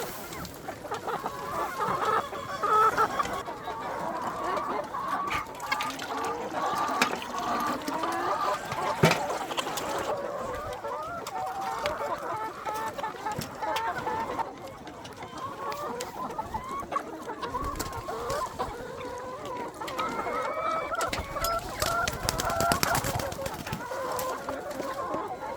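A flock of chickens clucking continuously, many short overlapping calls, with scattered sharp knocks.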